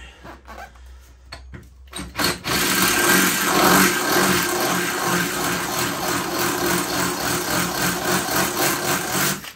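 Cordless drill boring a hole through a metal flat-bar bracket, starting about two seconds in and then running steadily under load.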